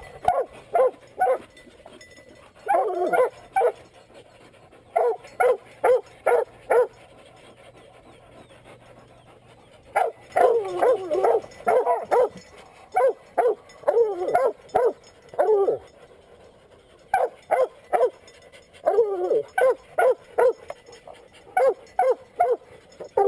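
Several young coonhounds barking up a tree in clusters of short, quick barks, treeing a live raccoon held in a cage raised into the tree. There is a lull of a few seconds about a third of the way in, then the barking picks up again.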